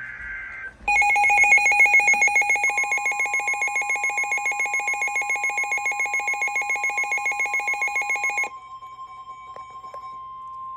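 Emergency Alert System alert tones. A brief burst of header data ends, and then a loud, rapidly pulsing, warbling alarm sounds for about seven and a half seconds. A steady high warning tone joins a couple of seconds in and keeps sounding more quietly after the alarm cuts off.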